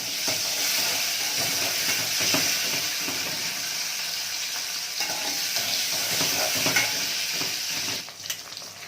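Garlic and peppers sizzling steadily in hot oil in a frying pan while being stirred, with soft knocks of the spoon against the pan. The sizzle drops away sharply about eight seconds in.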